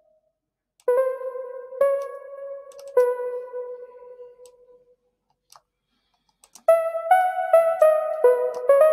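Software synthesizer in Ableton Live playing a sung melody transcribed to MIDI. Three single keyboard-like notes sound about a second apart, each ringing out and fading. After a short gap with two faint clicks, the melody plays back as a quick run of notes, two or three a second.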